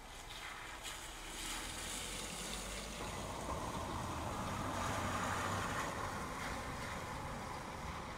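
A car driving past on the wet street, its tyres hissing through the water, rising to a peak about five seconds in and fading, over steady rain.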